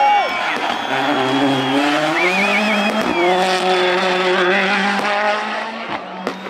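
A rally car's engine note drops as it brakes into a hairpin, then revs climb as it accelerates out, with a gear change about three seconds in, and the sound fades as it pulls away. A crowd cheers throughout, and a few firework cracks come near the end.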